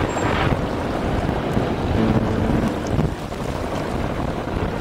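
Wind buffeting the microphone over a steady low rumble of boat engines and water, with a faint engine hum rising out of it about two seconds in.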